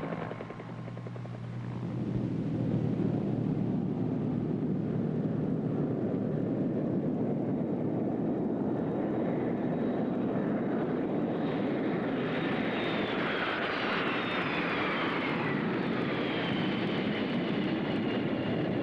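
Large aircraft flying past: a steady engine rush, with a high whine that falls in pitch in the second half.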